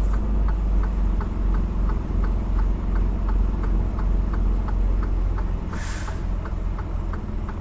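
A truck's turn-signal flasher clicking at about three ticks a second over the steady low drone of the diesel engine, heard inside the cab. A brief hiss comes about six seconds in.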